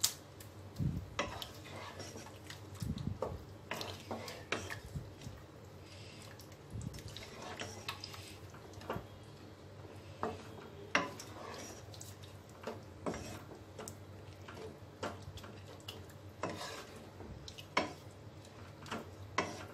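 Wooden spatula stirring chicken and yogurt in a nonstick pot, knocking and scraping against the pot in irregular clicks.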